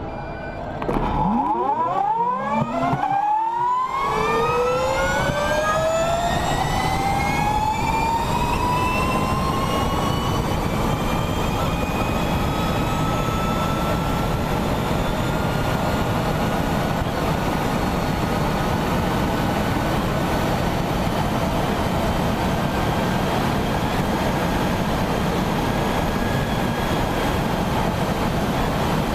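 Onboard a Honda electric race motorcycle launching from a standing start. About a second in, the electric motor's whine rises steadily in pitch over roughly ten seconds, then holds as a steady high whine under heavy wind and road rush at racing speed.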